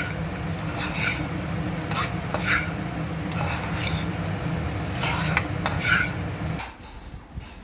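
A spatula stirring food in a hot frying pan, clinking and scraping against the metal every half second to a second over a low sizzle; it stops abruptly near the end.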